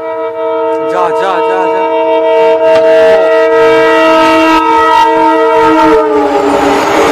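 Indian Railways diesel locomotive's multi-tone air horn blaring in one long continuous blast as the train approaches. About six seconds in, the horn's pitch drops slightly and it gives way to the loud rushing noise of the train running past.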